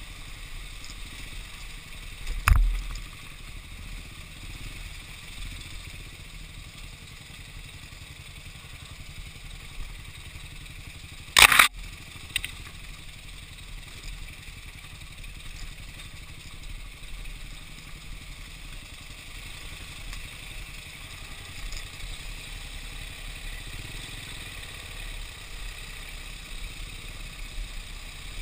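Dirt bike running along a rough, rocky trail, heard from a camera mounted on the bike, with a steady engine and wind rumble. Two sharp knocks stand out, one about two seconds in and a louder one near the middle, followed by a smaller rattle.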